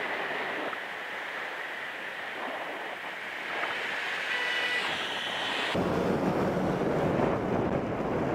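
Wind rushing over a cyclist's helmet-camera microphone, with road noise from traffic passing close by. About six seconds in, it cuts abruptly to a louder, deeper rush of wind and traffic.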